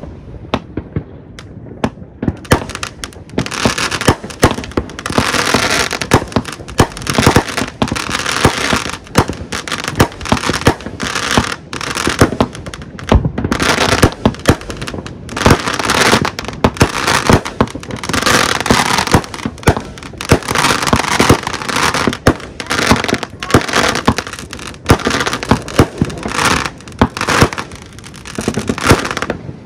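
Fireworks going off: a few separate sharp bangs, then from about two seconds in a dense, continuous crackle of many small reports with loud bangs mixed in.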